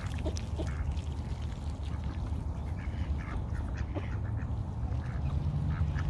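Mallard ducks giving short quacks, several scattered through, over a steady low rumble.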